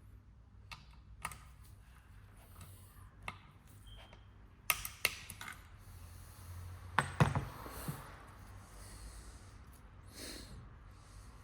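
Scattered clicks and knocks of parts and hand tools being handled on a workbench during an oil pump rebuild, the loudest a pair of knocks about five seconds in and a cluster about seven seconds in.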